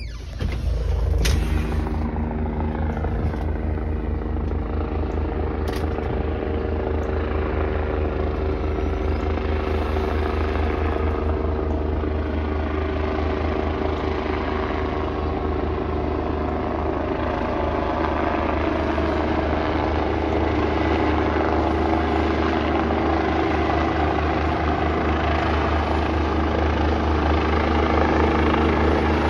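Rescue helicopter flying low and slowly overhead on its approach to land: a steady rotor chop over a droning hum, growing a little louder toward the end.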